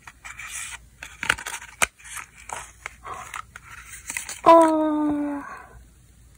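Paper rustling and scraping as a pen is slid out of its white paper sleeve, with a few sharp ticks. Near the end a held, slightly falling voiced "ooh" of admiration lasts about a second and is the loudest sound.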